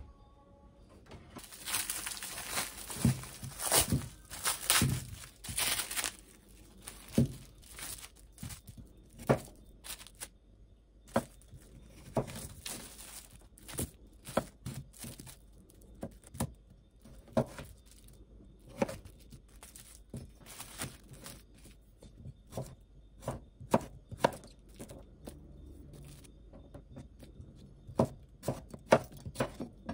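Food-preparation handling sounds: several seconds of rustling and crinkling, then scattered sharp taps and knocks about once a second, with more rustling in places.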